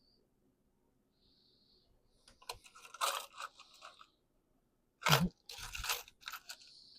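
Crinkling and crunching from candy being unwrapped and eaten, in two crackly spells a few seconds in, with a sharper knock between them.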